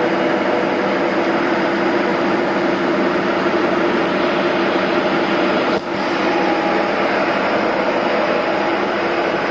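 Diesel railcar engine running steadily at idle, a constant drone with a steady hum. A short click and brief dip in level come about six seconds in.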